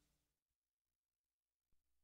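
Near silence: the last trace of a music fade-out dies away at the start, then a single faint click late on.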